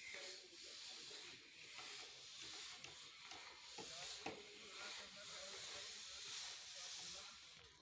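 Faint steady hiss of background noise, with a couple of soft taps about three and four seconds in.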